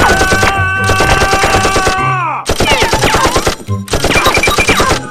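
Dubbed automatic-gunfire sound effect: rapid shots in three long bursts, with short breaks between them. Over the first burst a long, high cry is held and then drops in pitch about two seconds in.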